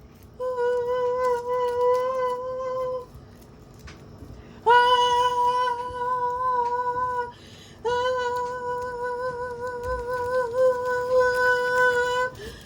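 A high voice holding long, steady 'ooh' notes on one pitch, three times with short breaks between, the last one longest.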